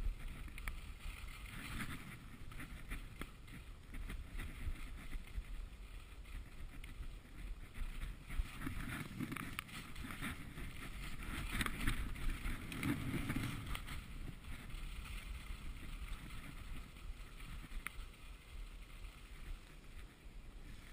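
Skiing or snowboarding down packed snow, heard as a rushing hiss of the edges sliding over the groomed surface that swells and fades several times, over a low rumble of wind on the microphone.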